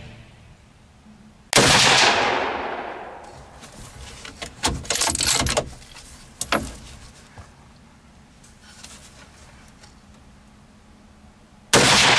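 Two hunting-rifle shots about ten seconds apart, each a sharp crack with an echo that rolls off over a second or two. A few quieter clicks and knocks come between them.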